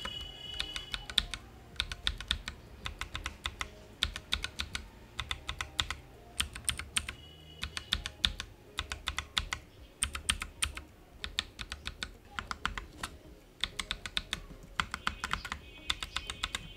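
Typing on a Bajeal mechanical keyboard: quick, uneven runs of sharp key clicks, several a second, broken by short pauses.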